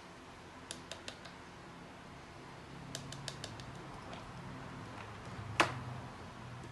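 Small sharp clicks and taps in two short irregular runs, then one louder knock with a brief ring about five and a half seconds in, over a faint low hum.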